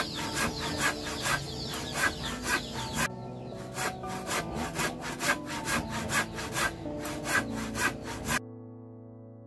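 Handsaw cutting through a wooden plank in steady back-and-forth strokes, about three a second. It stops suddenly shortly before the end, leaving soft background music with held tones.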